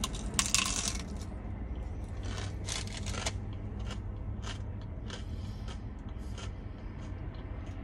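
Bite into a Jack in the Box breakfast taco's crispy fried shell: a loud crunch about half a second in, then chewing with crunches about two a second.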